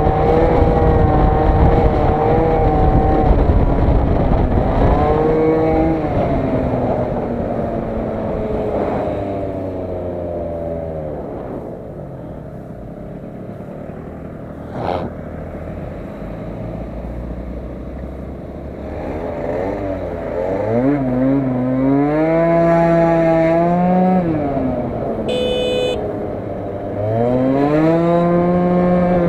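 Aprilia SR50R scooter's 50cc two-stroke single-cylinder engine heard from the rider's seat: running at speed with wind rushing over the microphone, then falling in pitch to a low idle as the scooter slows. It then revs up hard twice as the scooter pulls away.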